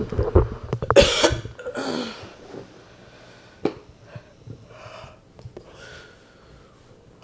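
Microphones being handled with a few low knocks, then a loud cough about a second in and a weaker one about a second later. A sharp click follows, and near the end there is a faint yawn.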